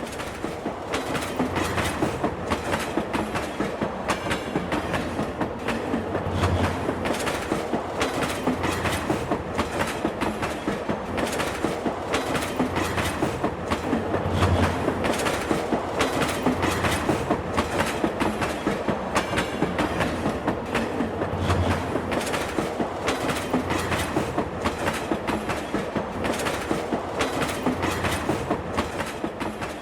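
A train passing close by, its wheels clattering over the rail joints in a steady, even rhythm the whole time.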